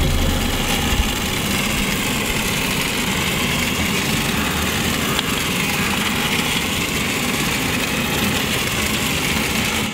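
Small 1.5-volt DC motor of a battery-operated toy helicopter running, its main rotor whirring, as the toy circles on its thread. The sound is steady and even.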